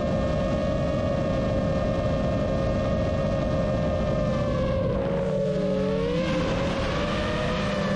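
GEPRC Vapor D6 six-inch FPV quadcopter's motors and propellers whining steadily in flight. About five seconds in the pitch dips and climbs back as the throttle is eased off and pushed again.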